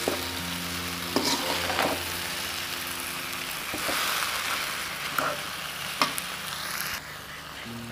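Elephant apple slices with sugar sizzling in mustard oil in a pan while a metal spatula stirs them, with a few scrapes and knocks against the pan.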